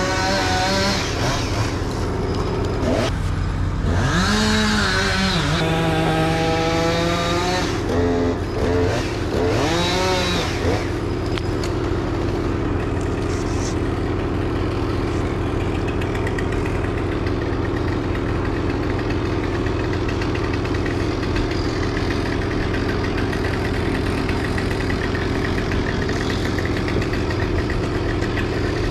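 A motor engine running steadily, revved up and down several times in the first ten seconds or so, then holding a steady drone.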